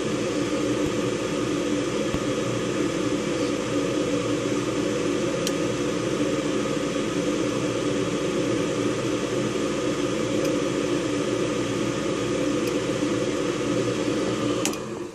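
The draft inducer motor of a York 90% furnace running with a steady whir, then cutting off abruptly near the end. The burners are not lighting: the faulty control board never puts out voltage to the gas valve.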